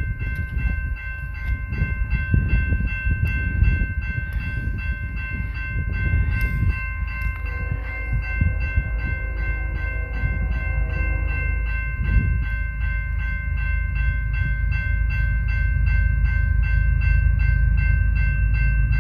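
Wind buffeting the microphone over the rumble of an approaching Union Pacific freight train. Its horn sounds faintly from a distance partway through, and the rumble grows louder toward the end.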